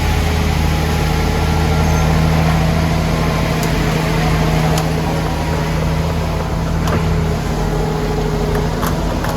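Diesel engine of a Dynapac SD2550C asphalt paver running at a steady speed, with a few sharp clicks now and then.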